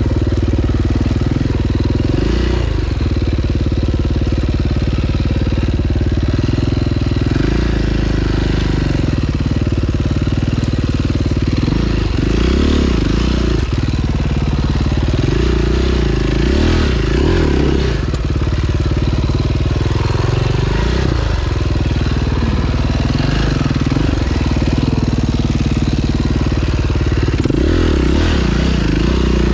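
Single-cylinder four-stroke engine of a 2009 KTM 530 EXC enduro bike under way on a trail, its revs climbing and dropping again and again.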